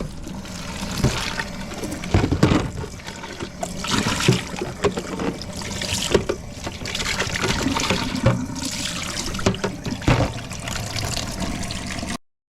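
Water trickling and splashing, with irregular knocks and clatter throughout; the sound cuts off abruptly near the end.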